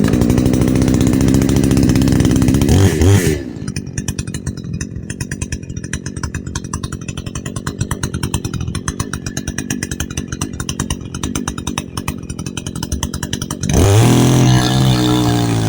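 Radley 52cc two-stroke chainsaw running at high speed, then dropping to a fast, pulsing idle about three seconds in. Near the end the throttle is opened again and the engine revs up.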